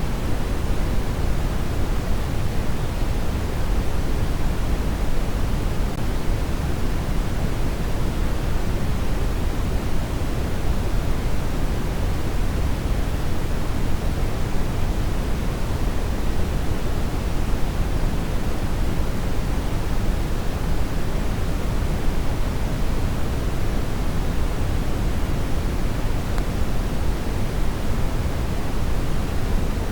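Steady generated colour noise: a constant, even rush with no change, fuller in the low end than the treble, closer to pink noise than to a bright hiss.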